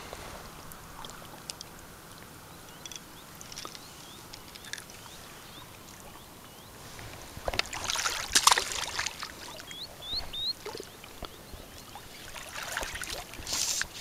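Water splashing and trickling at the lake's edge for about two seconds midway, as a caught crappie is let back into the water, with smaller splashes near the end. Faint short rising bird chirps come and go before and after.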